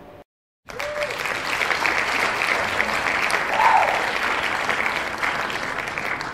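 Crowd applauding: a dense, even patter of many hands clapping that starts suddenly after a short silence, about half a second in, and eases off slightly near the end.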